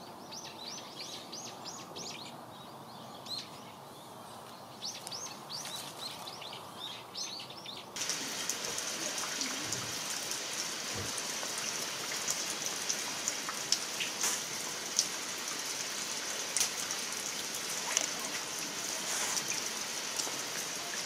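Small birds chirping in quick repeated trills for the first several seconds. After a cut comes a steady hiss full of scattered sharp crackles, from a wood fire burning under steaming cast-iron cauldrons, with a couple of low knocks.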